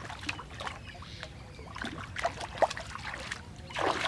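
Irregular small splashes and sloshing of water, with a louder splash just before the end.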